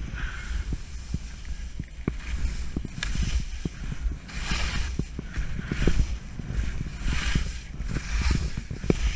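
Skis scraping and hissing over snow through a run of mogul turns, one hiss swell about every second, with sharp knocks as the skis hit the bumps and a low wind rumble on the microphone.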